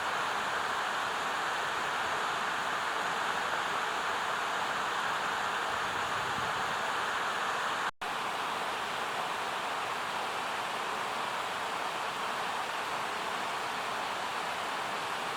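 Steady rushing of running water, with no bird calls. It cuts out for an instant about eight seconds in.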